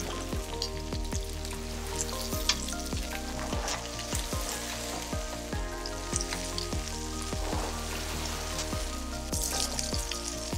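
Food sizzling and spitting on a hot iron griddle over a wood fire, heard under background music with a steady beat.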